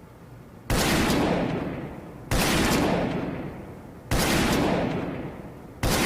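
New Army revolver firing four single shots at an even pace, about one every 1.7 seconds. Each sharp report is followed by a long, fading echo.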